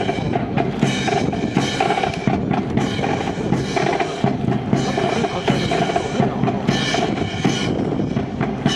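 Band music accompanying the drill, led by a steady drum beat of bass and snare drums, with pitched instruments sounding over it.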